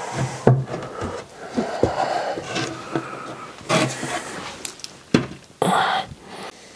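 Plywood panel being handled against a wooden cabinet: a series of wooden knocks and short scrapes, with the longest scrapes around the middle and near the end.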